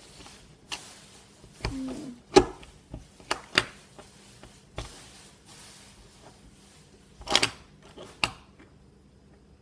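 Scattered clicks and taps of small plastic fidget-cube parts being handled and pressed into place, about eight in all, the loudest about two and a half seconds in and a quick cluster near the end.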